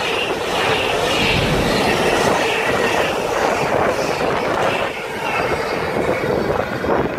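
Freightliner container train's wagons passing close by on the through line, their wheels rumbling and clattering on the rails, with brief high-pitched wheel squeals now and then.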